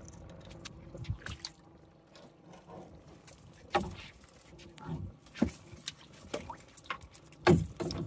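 Irregular knocks and clatter of crab traps and gear being handled aboard a small boat. Two thumps stand out: one a little under four seconds in, and the loudest near the end.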